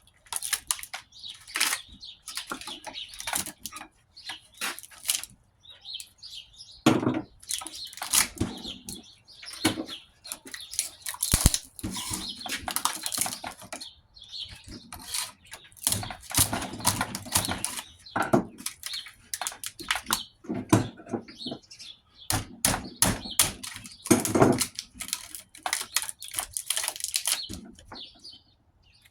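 Oil-coated copper motor windings being pulled out of a scroll compressor's steel stator by hand: irregular scraping, rustling and clicking of wire against metal, in bursts with short pauses.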